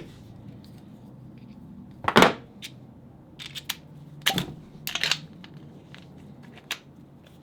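Scattered clicks and knocks from handling a multi-bit screwdriver, its bits being pulled and swapped. The sharpest knock comes about two seconds in.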